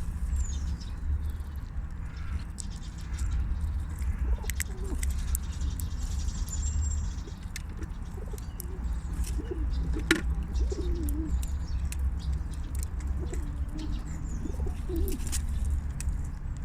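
Baby squirrel sneezing over and over: short sharp sneezes about every second or two over a steady low rumble. Soft low wavering calls come near the middle and again near the end, and a brief high falling chirp comes at the start.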